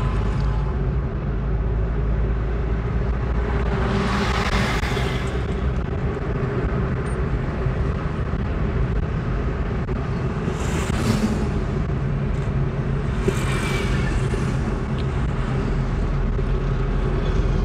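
A car running at road speed, heard from inside the cabin: a steady engine hum and road noise, with three brief swells of rushing noise about four, eleven and thirteen seconds in.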